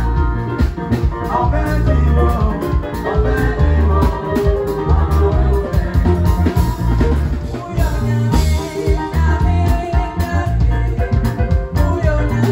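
Live band playing: electric guitar and drum kit over a strong, pulsing bass line, with a woman singing into a microphone.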